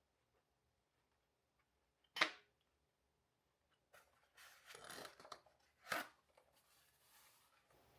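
Knife and fork cutting a bite of steak. A sharp clink of cutlery about two seconds in and another about six seconds in, with a rougher scraping stretch of cutting between them.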